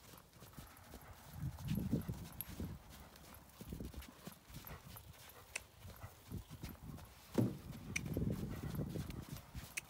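Connemara pony trotting on the lunge over a sand arena: dull, muffled hoofbeats on the sand, with one sharper knock about seven seconds in.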